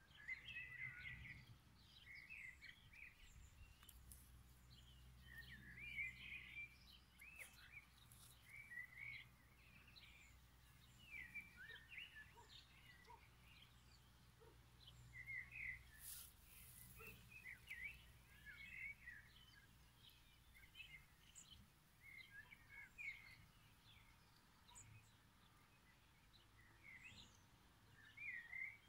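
Faint birdsong: small birds giving short, scattered chirps and twitters throughout, over a low steady hum.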